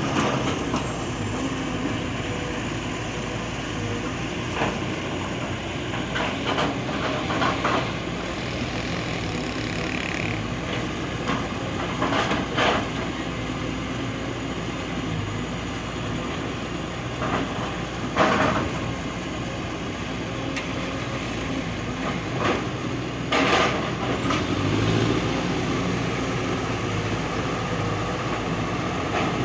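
Heavy excavator's diesel engine running steadily, with several short, loud scrapes or knocks as the ripper digs, the loudest about 18 seconds in.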